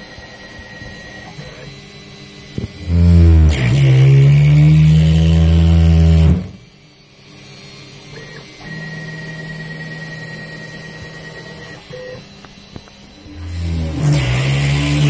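CNC router engraving acrylic, its Kress spindle motor turning a 90-degree V-bit at 5000 rpm, with a steady high machine whine. About three seconds in, a much louder, deeper machine sound rises in pitch and then holds until about six seconds, and it comes back near the end.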